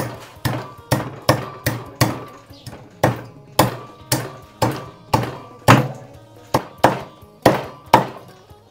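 Knife chopping frog meat on a chopping block: a steady run of sharp chops, about two a second.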